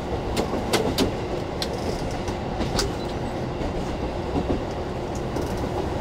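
A KiHa 40 diesel railcar running along the line, heard inside the passenger cabin: a steady rumble of engine and wheels, with a few sharp clicks in the first few seconds.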